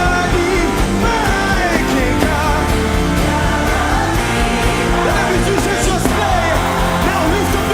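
Live worship music from a band: a lead melody sliding between notes over sustained bass chords.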